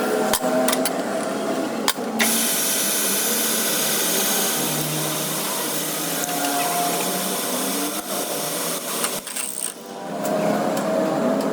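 Power tool working on a metal axle: a dense hissing noise holds for about six seconds in the middle, with sharp clicks and knocks before and after it.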